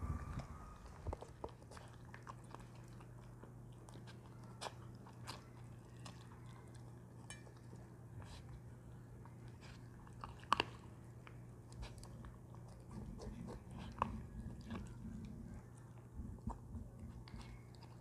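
Young Arctic fox chewing and lapping soft, moist food from a stainless steel bowl, with scattered small clicks; the sharpest click comes about ten seconds in.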